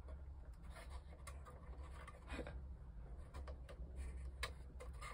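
Faint scratching and a few light clicks of a thin plywood model-ship part being slid and pressed into the notched slots of its frame, over a steady low hum.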